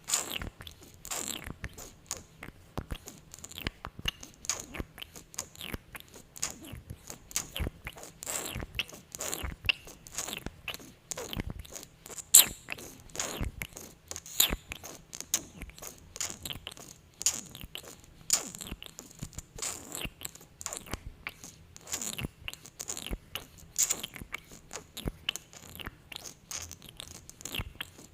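Close-miked sticky, glossy lip sounds from lips coated in lip gloss: irregular wet smacks and clicks, several a second.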